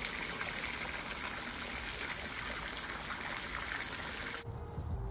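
Water from a garden hose running steadily into a fountain basin. It cuts off suddenly about four seconds in, and low music notes take over.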